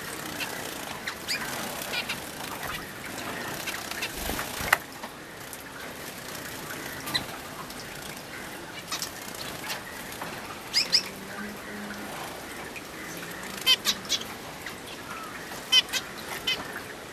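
Pet finches bathing: water splashing and wings fluttering, with clusters of short high chirps several times in the second half.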